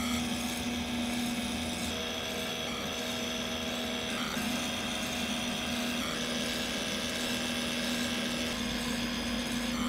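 Leather skiving machine running with a steady hum while a leather strap is fed through it and shaved thin by its blade.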